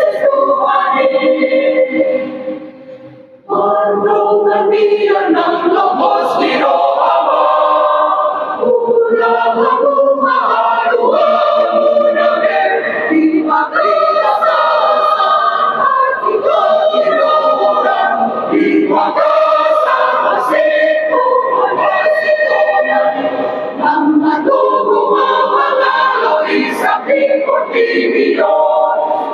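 Mixed choir of men's and women's voices singing in parts. About two seconds in, the voices die away, and about a second later the whole choir comes back in together.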